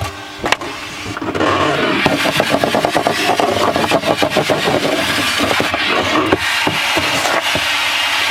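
Coarse 80-grit sandpaper worked by hand against the inside of a wooden kayak hull, a busy scraping noise of quick, uneven strokes starting about a second in.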